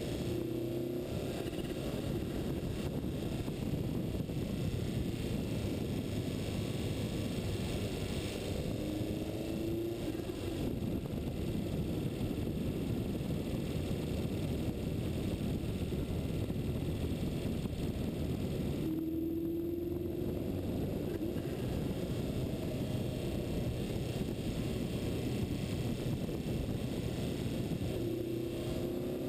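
Steady wind and road noise from a vehicle travelling at speed down a mountain road. A brief rising whine cuts in about every ten seconds.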